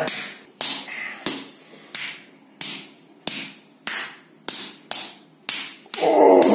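A rapid, even series of bare-fist punches landing on a man's bare abdomen and chest, each a sharp smack, about one every two-thirds of a second. A loud human voice cuts in near the end.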